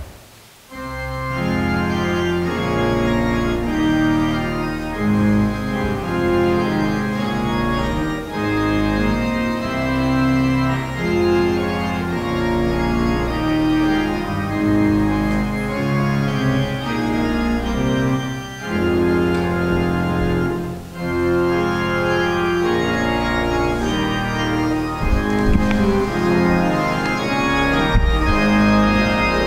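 Organ playing recessional music at the end of Mass: slow, sustained chords that change every second or two, starting about a second in.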